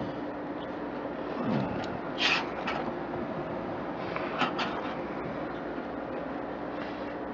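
A few short plastic clicks and scrapes from the push-pin fasteners of a stock socket 775 CPU heatsink being turned and lifted out, over a steady low background hum.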